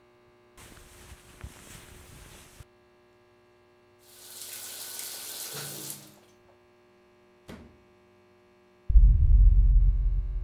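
Shower water running in two spells of hiss, each stopping abruptly, then a single click. Near the end comes a loud low rumble, the loudest sound.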